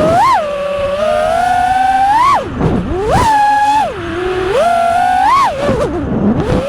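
FPV freestyle quadcopter's brushless motors whining, the pitch rising and falling with the throttle: quick punches up to a peak four times, and two deep drops in pitch where the throttle is cut, near the middle and near the end.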